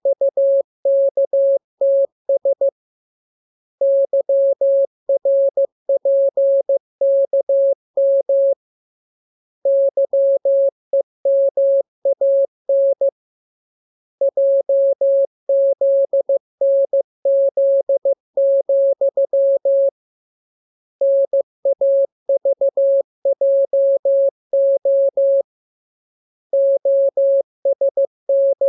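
Morse code sent as a single keyed mid-pitched tone. The dots and dashes come in runs of a few seconds, with silent gaps of about a second between the groups of practice characters.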